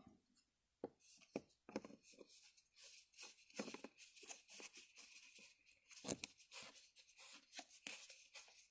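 Faint, irregular scraping and clicking of plastic threads as a washing-machine inlet valve is screwed by hand onto a threaded ¾-inch pipe fitting.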